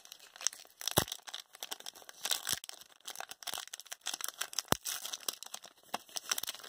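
Trading-card hanger pack wrapper crinkling and tearing as it is pulled open by hand: a run of sharp crackles with a couple of louder snaps, about a second in and a little past the middle.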